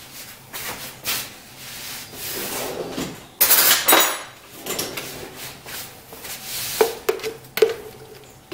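A spoon scraping and scooping mayonnaise out of a jar, with the jar handled and knocked against the countertop: a run of short rubs and scrapes, loudest about three and a half seconds in, and a couple of knocks near the end.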